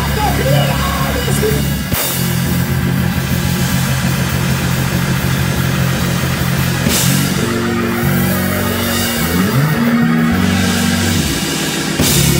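Live gospel band playing loudly: held organ chords over electric bass and a drum kit, with three cymbal crashes and a few sliding bass notes.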